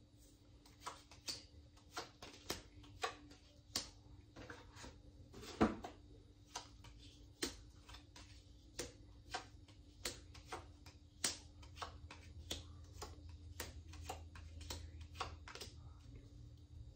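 Small cards being dealt one at a time onto a countertop: an irregular string of light clicks and taps, about one or two a second, with a sharper knock about six seconds in.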